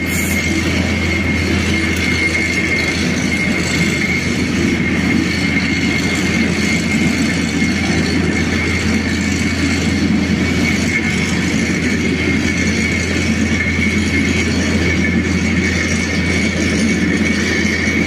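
Steady mechanical drone of construction machinery working across the river: a strong low hum with a rough rumble above it and a thin, steady high whine, unbroken throughout.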